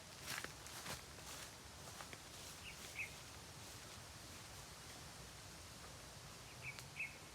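Quiet rural outdoor ambience with a bird giving short high chirps in two pairs, one about three seconds in and another near the end, after a few sharp clicks or rustles in the first second.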